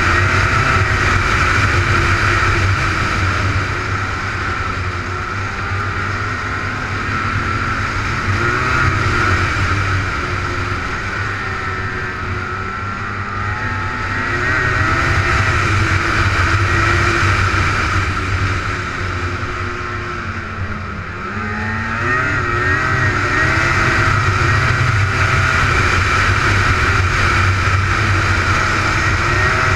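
Snowmobile engine running while the sled travels along a snow trail, its pitch wavering with the throttle. It eases off twice in the middle and picks up again about two-thirds of the way through.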